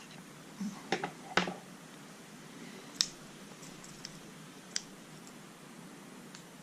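Small metal clicks and taps from a padlock being taken apart as its core is worked out of the body: a few sharp clicks about a second in, a louder one about three seconds in, and a faint one later.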